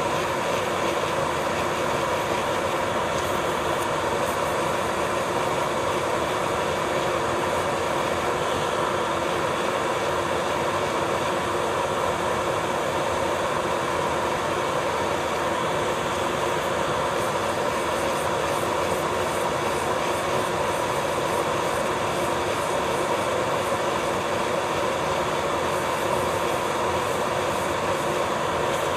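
Electric nail drill (e-file) running at a steady whine, its small cylindrical bit working over the nail surface along the cuticle line to clear leftover base gel.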